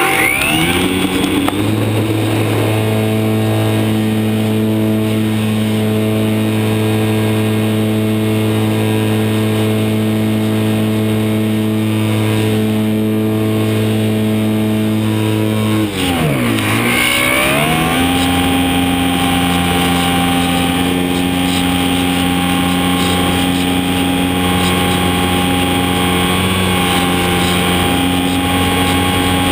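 Electric motor and propeller of a HobbyZone Super Cub DSM model airplane, heard from on board. The motor spools up quickly at the start for the takeoff and then runs at a steady pitch over a rush of air noise. About sixteen seconds in, the pitch dips sharply and climbs back within a couple of seconds, then holds steady again.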